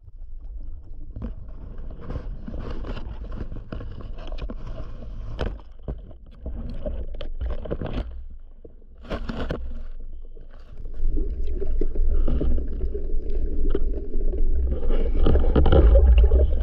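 Underwater sound picked up by a diver's camera: a steady low rumble of water with scattered sharp clicks and knocks. From about eleven seconds it turns into louder rushing, churning water as the spearfisher swims up toward the surface.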